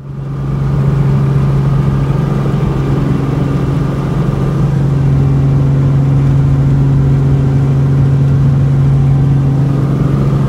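Cessna 175's piston engine and propeller running steadily, a constant low drone with no change in pitch.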